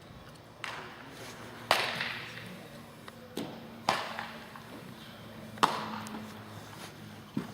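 Baseball impacts: a series of sharp smacks, one every second or two, three of them much louder than the rest, each echoing in a large indoor hall.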